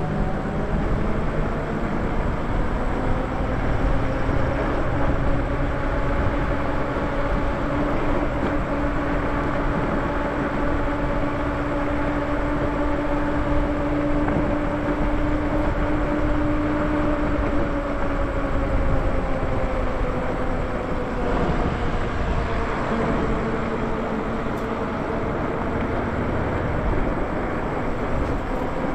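Lyric Graffiti e-bike's electric motor whining steadily under wind and tyre noise. The whine's pitch drifts slowly up and then drops about 20 seconds in, following road speed.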